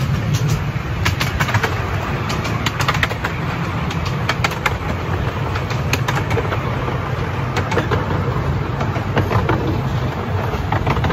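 Miniature railway train running along its track, heard from aboard an open carriage: a steady low rumble with frequent short clicks and clacks from the wheels and carriages.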